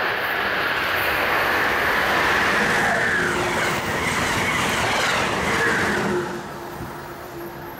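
Amtrak passenger train of stainless-steel coaches passing at speed: a steady loud rush of wheels on rail and air, which falls away about six seconds in as the last car goes by.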